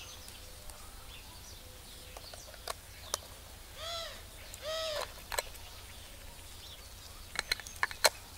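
Small sharp clicks and taps from handling a Canon EF 50 mm f/1.8 STM lens and its plastic caps, scattered through and bunched near the end. Two short bird calls, each rising and falling, come about four and five seconds in.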